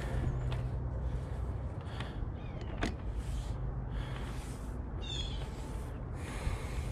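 Rustling and clicks of a magnet-fishing rope and magnet being handled, over a steady low rumble. A brief chirping animal call comes about five seconds in.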